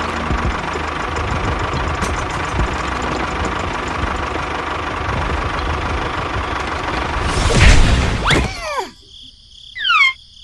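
Small electric motor of a toy tractor running with a steady whine, its tyres grinding over dirt and stones. About seven and a half seconds in there is a loud clatter as the tractor tips over, followed by a few high, falling squeaks.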